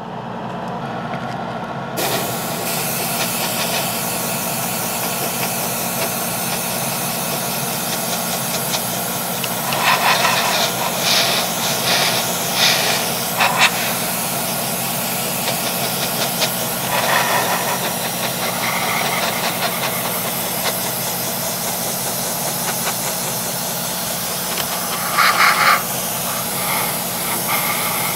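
Airbrush spraying paint: a steady hiss of air and atomised paint that starts about two seconds in, with a few louder spurts around the middle and again near the end, over a steady low hum.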